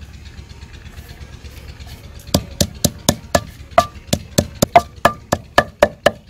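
Wooden pestle pounding chopped fresh coriander in a stone mortar, grinding it for green chutney: a steady run of sharp knocks, about four a second, starting a little over two seconds in.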